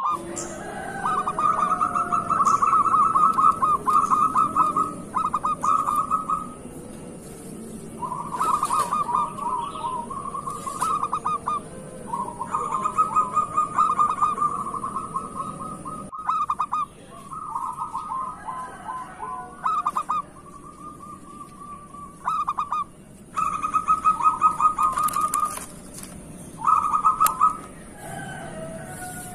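Zebra dove (perkutut) cooing: rapid stuttering, trilled phrases of one to three seconds, repeated again and again with short gaps.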